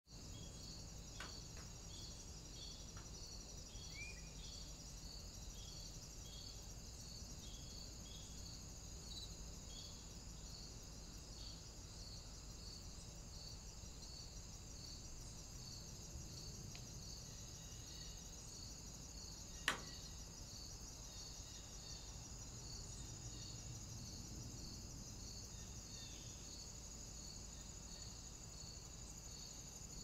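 Crickets and other insects chirping in a forest: a steady high trill with regular pulsed chirps repeating throughout. A single sharp click about two-thirds of the way through is the loudest sound.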